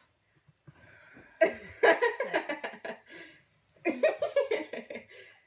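Two girls laughing in two bursts, the first about a second and a half in and the second about four seconds in.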